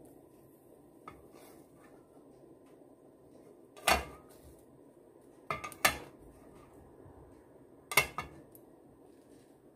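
Sharp metal clinks of a cooking pot and utensils: one about four seconds in, then two quick pairs near the middle and near the end. Under them runs a faint steady hum.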